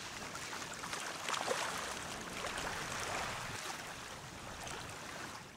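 Steady wash of ocean surf, fading out near the end.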